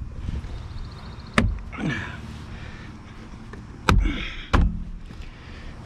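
Three sharp knocks from parts being handled during reassembly under a car's dashboard: one about a second and a half in, then two close together near four seconds, with faint rustling between.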